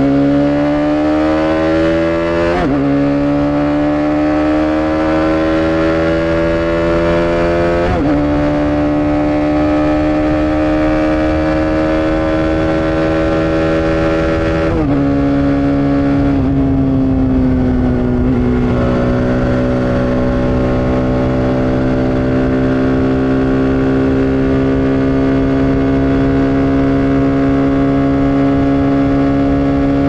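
TVS Apache RR 310's single-cylinder engine accelerating through the gears, its pitch climbing and dropping sharply at three upshifts, about three, eight and fifteen seconds in. The throttle then eases, the pitch sags, and the engine settles into a steady cruise.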